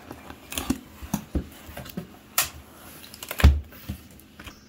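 Cardboard box being opened by hand: irregular taps, scrapes and rustles of the cardboard flaps, with one heavier thump about three and a half seconds in.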